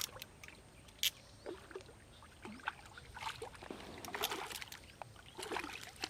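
Water splashing and sloshing in irregular short bursts, with scattered small clicks and knocks.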